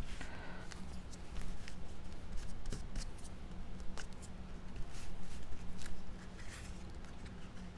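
Cardstock pieces being handled and pressed into place: soft paper rustling with scattered light clicks and taps.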